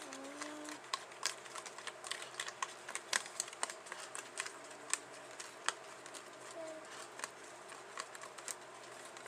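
Small utensil stirring and scraping in a plastic candy-kit tray, making quick irregular light clicks and taps as a powder-and-water mixture is mixed.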